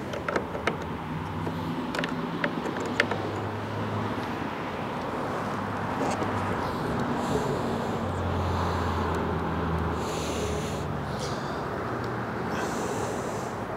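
Sharp metallic clicks of needle-nose pliers working a snowblower's chute control rod into its fitting, several in the first three seconds. Under them, steady outdoor background noise with a low engine hum that comes and goes, from a vehicle in the background.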